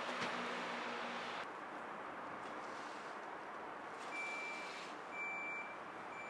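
Steady outdoor noise with a low engine hum for the first second and a half. About four seconds in, a vehicle's reversing alarm sounds a single high beep three times, roughly once a second.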